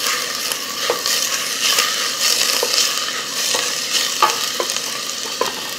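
Diced onion sizzling in olive oil in a stainless steel sauce pot while a wooden spoon stirs it, with a few light clicks. The steady sizzle is the sign that the pot is hot enough to sauté the onion soft without browning it.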